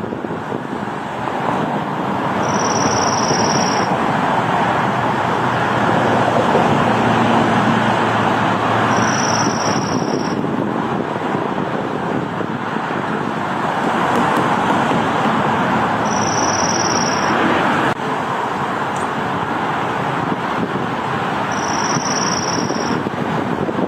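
A dark-eyed junco sings its short high trill four times, each about a second long and repeated every six or seven seconds. A steady rushing road-traffic noise runs beneath it and is the loudest sound.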